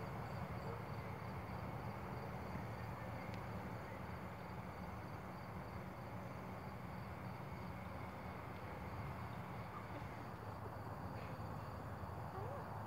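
Faint outdoor ambience: an insect chirping in a fast, even rhythm over a steady low hum. The chirping fades out about ten seconds in.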